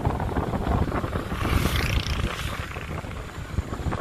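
Wind buffeting the microphone on a moving motorbike, with the bike's engine and road noise running underneath and a brief higher rush of air about halfway through.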